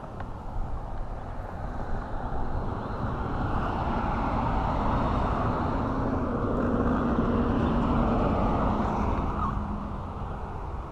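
A vehicle passing on a road nearby, its engine and tyre hum growing louder for several seconds and then fading away, over a steady low rumble.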